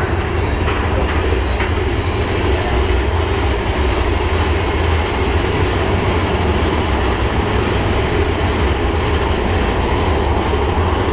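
Mine-train roller coaster cars running along the track, heard from on board: a steady, loud rumble and rattle of the wheels and cars.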